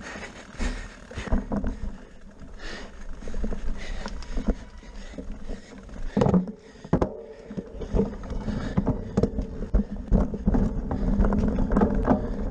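Cyclocross bicycle rattling and knocking irregularly as it is pushed up a rough grass slope and then ridden over bumpy ground, with a louder clatter about six seconds in. Low wind and rolling rumble on the bike-mounted microphone builds toward the end as speed picks up.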